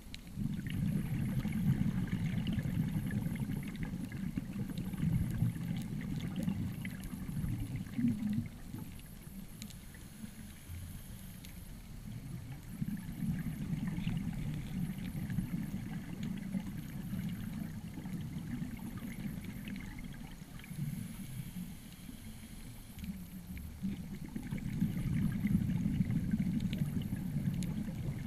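Muffled underwater rumble of a scuba diver's exhaled bubbles heard through a camera housing, swelling for several seconds and then easing off, three times over.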